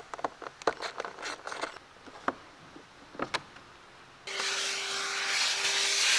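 Light clicks and rattles of a plastic air filter housing lid being unscrewed with a screwdriver and lifted off. About four seconds in, a vacuum starts and runs with a steady loud hiss and hum, sucking debris out of the open airbox through its hose.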